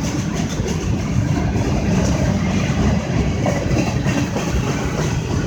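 Slow CSX freight train's boxcars rolling past, a steady low rumble.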